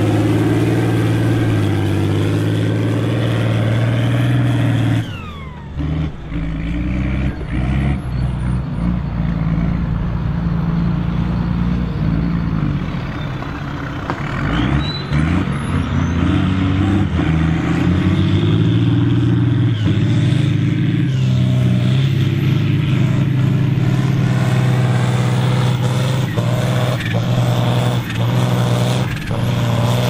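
Diesel tractor engines running hard under full load while pulling ploughs at speed, starting with a John Deere 4240's six-cylinder turbo diesel. The engine note changes abruptly about five seconds in and again around thirteen seconds, as one tractor gives way to another.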